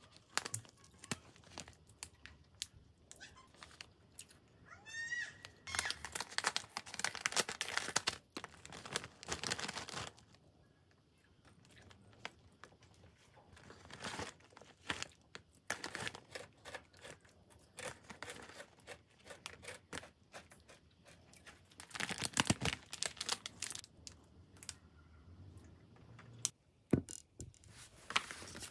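Plastic snack packets crinkling and rustling as they are handled, with the tearing and crackling of a bag being pulled open, in bursts of short crackles separated by quieter pauses.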